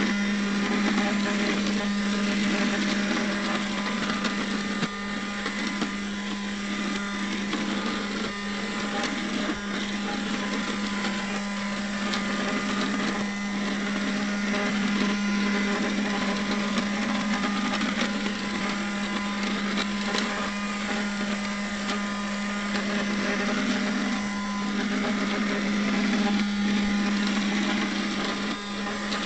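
Small robot vacuum cleaner running: its motor whirs steadily with a constant hum, and scattered light clicks and rattles as it travels over the floor and debris.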